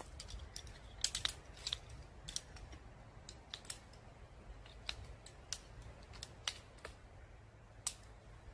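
Irregular sharp clicks and snaps, about fifteen spread over several seconds, the loudest cluster about a second in and a single loud one near the end.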